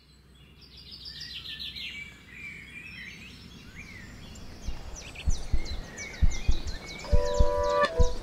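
Birdsong ambience fading in from silence: many chirps and trills. From about halfway, a series of low thuds joins in, and near the end a held tone sounds as music begins.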